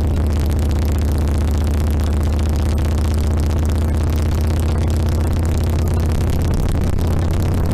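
2007 Harley-Davidson Sportster XL1200R's air-cooled V-twin engine running steadily, with a deep, even low note and a hissy wash over it.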